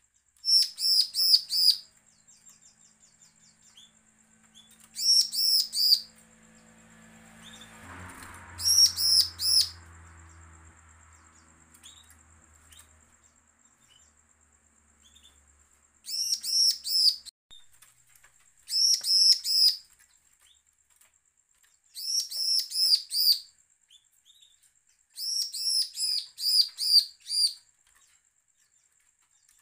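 Bar-winged prinia (ciblek) singing in short, loud bursts of rapid repeated notes, seven phrases of about four to seven notes each, separated by pauses of one to several seconds.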